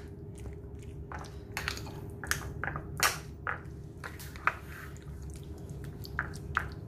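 Metal spoon stirring raw chicken pieces in thick curd and spice powders in a bowl: irregular wet squelches and sharp clicks as the marinade is mixed, over a steady low hum.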